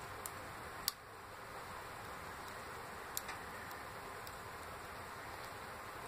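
Small sharp clicks of lock picks and pins working in a Master Lock 140 padlock: one small click just after the start, a louder one about a second in, and two close together a little past three seconds, over a steady faint hiss.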